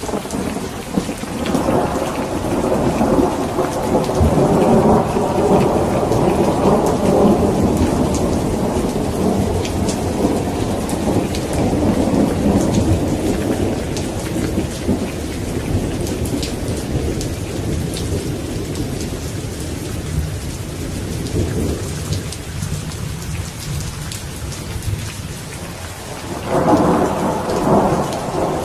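Steady rain with rolling thunder: a long low rumble swells just after the start and fades slowly over about twenty seconds, and a second peal rolls in near the end.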